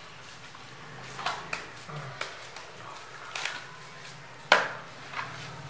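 Scattered clinks and knocks of metal bowls and hands as cooked rice is pressed into cones by hand. The loudest is a sharp knock about four and a half seconds in.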